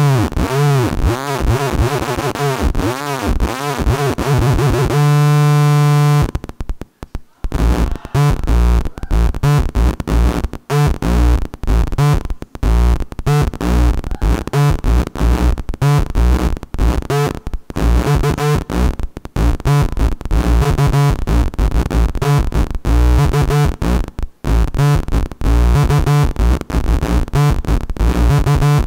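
Harsh electronic tones from a photoresistor-controlled sound circuit, its sound changing with the brightness of the light on it. The pitch swoops up and down repeatedly for about five seconds, holds a steady buzz for about a second, then breaks into a fast stuttering chop of pulses with brief gaps.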